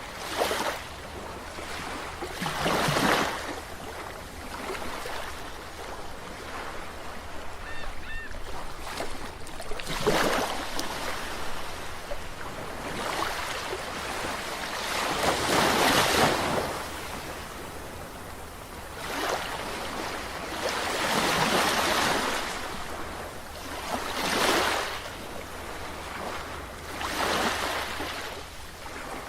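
Sea waves washing in, each surge of hiss swelling and fading every three to six seconds, with the biggest surges near the middle.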